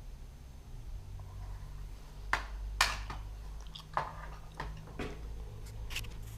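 Several short, sharp clicks and knocks, about six spread over three or four seconds, as parts or tools are handled, over a low steady hum.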